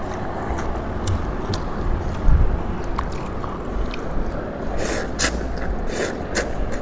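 A person eating beef noodles close to the microphone: chewing with wet mouth clicks, and a few louder smacks about five to six and a half seconds in.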